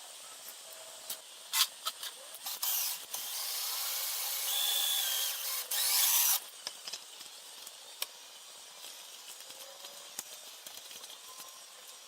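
A power tool runs for about four seconds, after a few short bursts, then stops.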